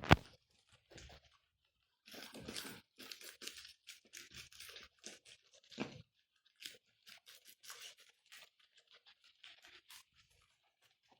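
Guinea pigs chewing and tearing at food, with a quick run of crisp crunching bites. A single sharp knock comes right at the start.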